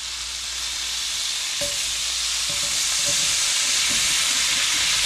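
Drained home-canned potatoes going into hot lard and butter in a cast-iron skillet and sizzling as they fry. The sizzle builds steadily louder as more pieces drop in, with a light knock of potato on the pan about one and a half seconds in.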